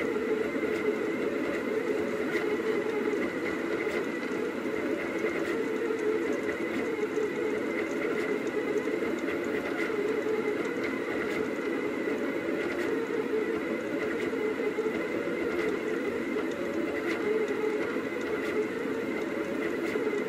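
Rostock delta 3D printer running mid-print: its stepper motors whir steadily as the print head makes quick small moves, with faint ticking.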